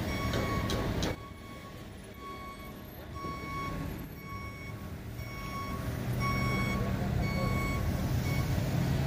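A vehicle's reversing alarm beeping about once a second. An engine's low rumble grows louder in the second half.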